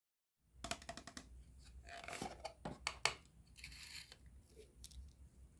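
Plastic toy cookware being handled: a small plastic saucepan knocked and set down on a plastic toy cooktop, giving light clicks and knocks with faint rustling between.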